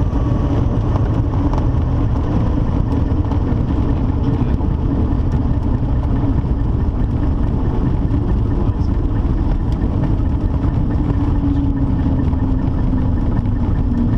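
1981 Cessna 152's Lycoming O-235 four-cylinder engine idling with the propeller turning slowly during the landing rollout, a steady drone.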